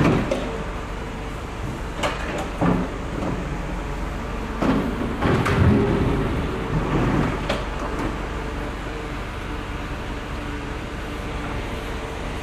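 Busy street ambience: vehicle engines running steadily, with a handful of short clunks and knocks, the loudest about two and five seconds in.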